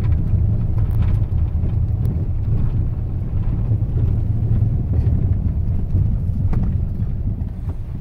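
Steady low rumble inside a vehicle's cabin as it drives over a bumpy, ridged dirt road, with a few light knocks and rattles from the jolts.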